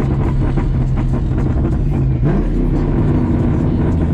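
New Edge Ford Mustang's engine running under way with a popcorn tune and an off-road H-pipe, a steady drone heard from inside the cabin, with a brief rise in pitch a little after two seconds in.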